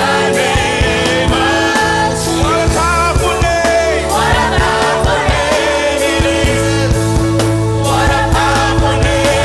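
Gospel worship music: a band plays held chords and steady drum hits while a voice sings a gliding, wavering melody over them.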